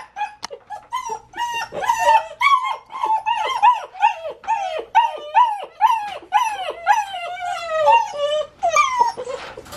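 Doberman pinscher puppies whining and crying in a wire crate: a rapid string of short high-pitched cries, each falling in pitch, about two or three a second, which stop shortly before the end. It is the distress crying of puppies newly shut in a crate at bedtime.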